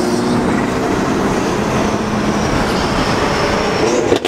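A group of BMWs driving together: a steady, loud rumble of engines, exhausts and road noise heard from inside a moving car, breaking off with a few clicks near the end.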